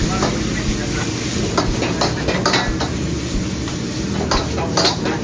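Metal ladle scraping and clanking against a wok while food is stir-fried, with repeated sharp clanks over steady sizzling and the rush of the gas wok burner.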